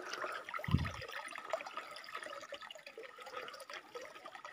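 Water pouring from a pipe spout into a full basin and splashing as hands scoop it up onto a face, with a low thump about a second in.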